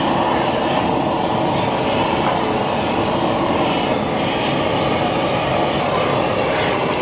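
Steady rushing noise of a gas burner flame, used to singe a plucked bird.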